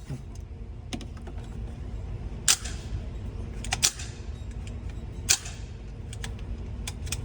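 Gunshots at a shooting range: three sharp reports about a second and a half apart, each with a short echo, with fainter clicks and pops between them.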